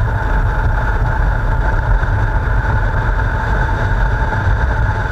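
Motorcycle riding along at a steady speed: a steady engine drone mixed with rushing wind, heard from a camera mounted on the bike.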